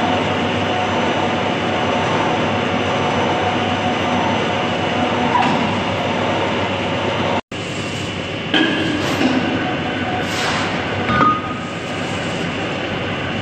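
Large centre lathe running, a big steel ring turning in its four-jaw chuck: a steady machine drone with a faint high whine. The sound cuts out for an instant about halfway, and a few short clinks and squeaks follow.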